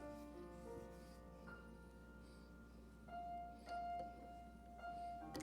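Soft keyboard music: quiet held chords, the notes shifting every second or so.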